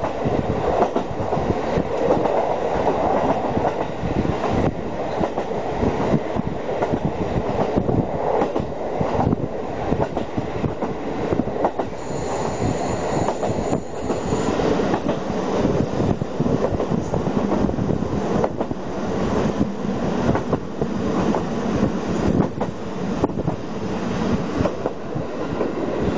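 KiHa 40 diesel railcar running along the line, heard from inside the passenger cabin: a steady rumble of wheels and engine with irregular clicks over the rail joints. A brief high whine sounds about halfway through.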